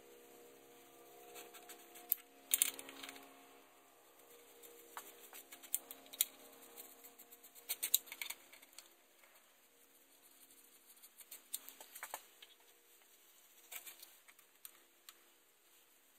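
Light metallic clicks and taps of bolts and hand tools as transmission pan bolts are run in. The clicks come scattered, in small bunches about two and a half, eight and twelve seconds in.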